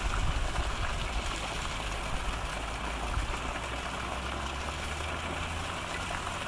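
Steady rushing spray of a fountain jet in a lake, with a low steady hum under it.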